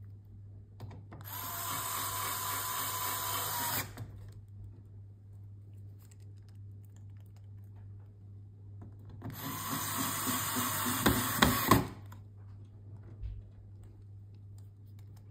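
Electric screwdriver driving small screws into a car head unit's frame. The motor runs twice, for about three seconds each time, and the second run ends with a few sharp clicks.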